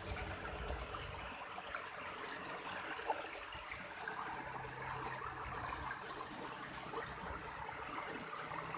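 Irrigation channel water flowing and trickling, a steady running-water sound, with one brief click about three seconds in.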